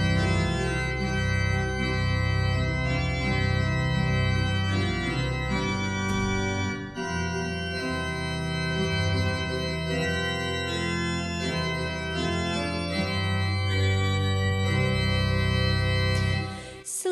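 Church organ playing slow, sustained chords, with a short break about seven seconds in. It stops just before the end.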